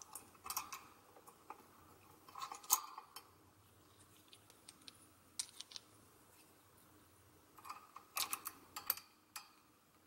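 Faint clicks and clinks of small washers and a bolt being handled and fitted by hand at the pivot joint of a swing-arm mic bracket, coming in a few short scattered clusters.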